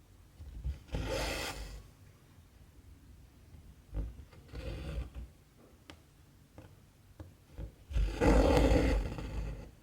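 Cotton embroidery thread being pulled through cross-stitch fabric: three rasping pulls, the last the longest and loudest, with a few light clicks between them.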